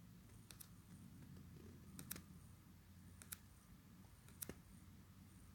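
Near silence with a low hum and faint sharp clicks in close pairs, four pairs spaced a second or so apart: fingertip taps on a phone's touchscreen while paging ahead through chapters.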